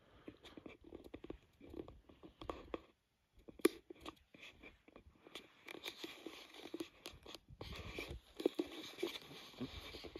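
Footsteps crunching irregularly over dry, gravelly desert ground and twigs, with brush rustling and scraping against clothing, denser in the second half.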